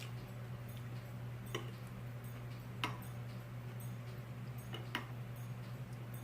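Quiet eating sounds: three sharp clicks a second or two apart over a steady low hum.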